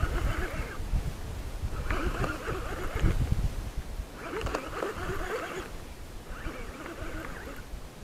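Baitcasting reel being cranked in repeated spells of about a second, roughly every two seconds, as line is retrieved, with rod handling and wind rumble on the microphone.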